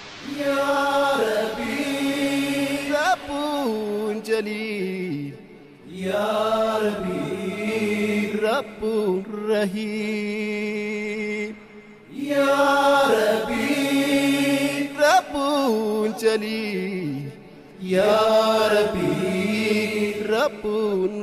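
An a cappella nasheed intro of layered voices: a held vocal drone under a sung phrase with sliding, ornamented notes. The phrase repeats about every six seconds, with a short breath-like drop between repeats.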